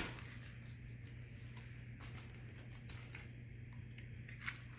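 Faint handling sounds of homemade slime being squished and stretched, with a few soft clicks, over a steady low electrical hum.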